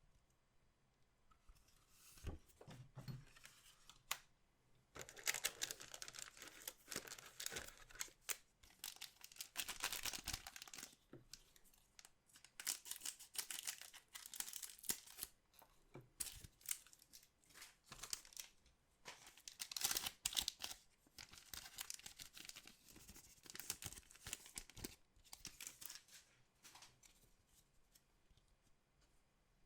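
Trading-card pack wrappers being torn open and crinkled by hand, in repeated bursts of tearing and rustling with short pauses between.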